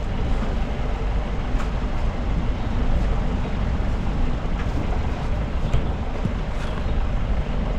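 Steady engine and road noise of a vehicle driving on a rough dirt road, heard by someone riding on it, with a few faint knocks.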